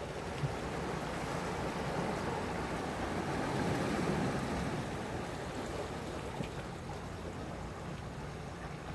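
Sea waves washing in and out, with one wave swelling to its loudest about four seconds in and then drawing back.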